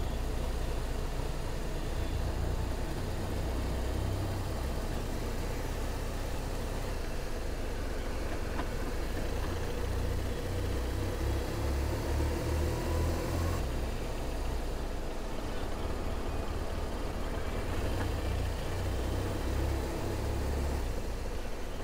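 Motorcycle running at road speed on a wet road: steady engine and road noise.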